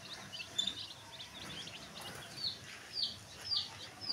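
Chicks peeping over and over in a run of short, high calls that each fall in pitch, about two a second.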